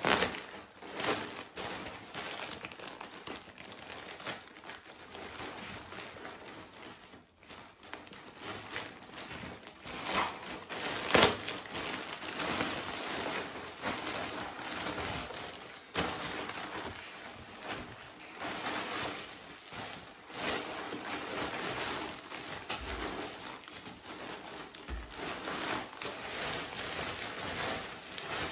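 Plastic mailer bag and plastic-wrapped packets crinkling and rustling in irregular bursts as a package is cut open with scissors and its contents are pulled out, with one sharp, louder crackle about eleven seconds in.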